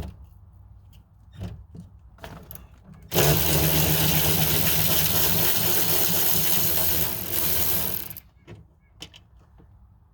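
A handheld power driver runs for about five seconds, backing out the bolts that hold the window regulator in the door, then cuts off abruptly. Light knocks and clicks of handling come before and after.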